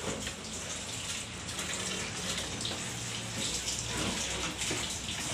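Water running steadily from a garden hose into a plastic basin of plastic kitchenware while the containers are rinsed and washed by hand.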